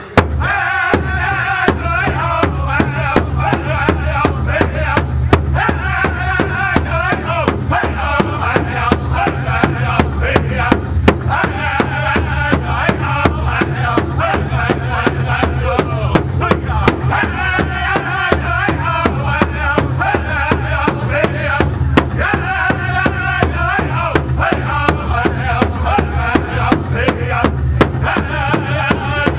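Powwow drum group singing in unison over a large hand drum struck together by several drummers at a steady, even beat. The drum comes in with a loud stroke right at the start, under voices that were already singing.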